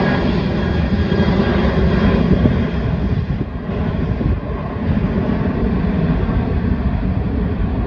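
Jet airliner's engines rumbling loudly on takeoff, a deep steady roar that eases slightly about two and a half seconds in.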